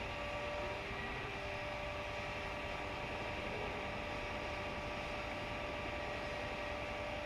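Steady hum and hiss with a few thin high tones held constant, unchanging in level.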